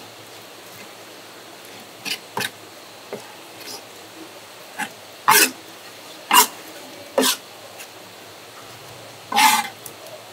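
Knife and seafood hitting a cutting board as squid is cleaned and cut: about eight sharp, irregular knocks and slaps, the loudest around the middle, with a slightly longer one near the end.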